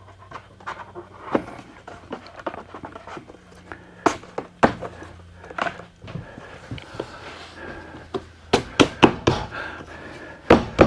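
Wooden knocks and thuds as a shop-made wooden dowel-drilling jig is pushed and tapped onto the edge of a wooden panel until it seats against its stop, with a cluster of sharper knocks near the end.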